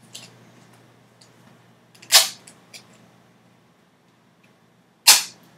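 Duct tape ripped off the roll: two short, loud rips about three seconds apart, with a few faint handling clicks between.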